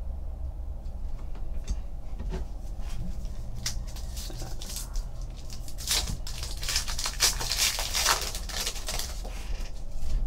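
Foil trading-card pack being torn open by hand: a few light clicks of cards being handled, then about four seconds in the wrapper crinkles and rips, loudest in the second half.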